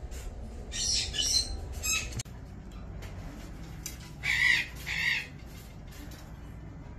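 Parrots squawking: a burst of shrill calls about a second in, then two loud, harsh squawks at about four and a half and five seconds, the calls of a Patagonian conure.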